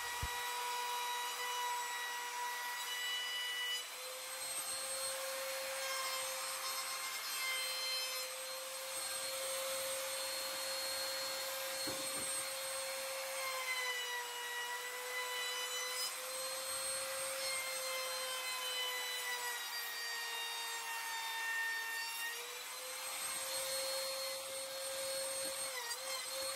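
Compact trim router running with a steady high whine as a round-over bit cuts along plywood edges, the pitch sagging slightly a few times as the bit takes load.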